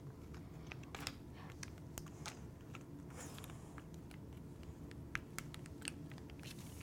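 Faint light taps and rubbing as butter is spread over a round microwave-safe dish, scattered small clicks over a low steady room hum.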